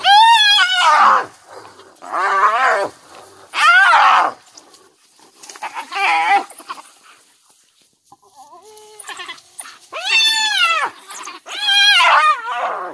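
African wild dogs and a hyena fighting over a kill: loud, high-pitched cries, each about a second long, rising then falling in pitch, repeated about every two seconds. A fainter, lower call comes about eight seconds in.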